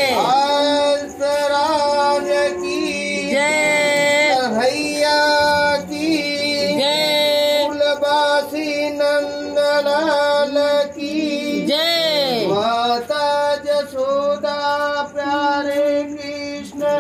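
A song playing: a singing voice over accompaniment, holding notes and sliding between them, with big swooping slides near the start and about twelve seconds in.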